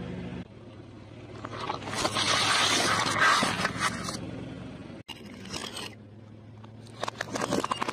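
Car tyre rolling slowly over objects and crushing them: a loud crunching, scraping stretch from about two to four seconds in as it flattens plastic trays filled with water beads, then a run of sharp cracks near the end. A low steady engine hum sits underneath.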